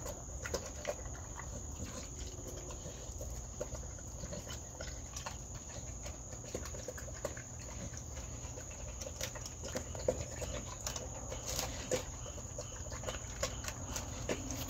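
Dog eating dry kibble from a stainless steel bowl: irregular crunching and clicks of teeth and food against the metal. A steady high cricket trill runs behind it.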